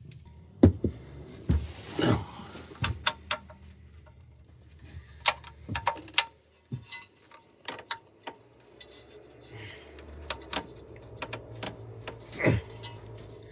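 Irregular metallic clicks and clinks of hand tools working on the transmission pan bolts, with no steady rhythm.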